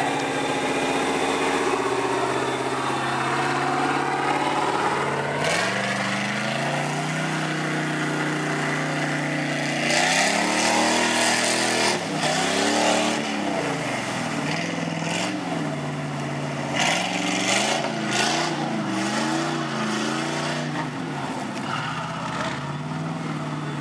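Lifted Chevrolet pickup on tractor tires, its 350 V8 engine revving hard. The revs rise about five seconds in, then swing up and down again and again as the tires churn through a mud hole, with mud splashing and spraying in bursts.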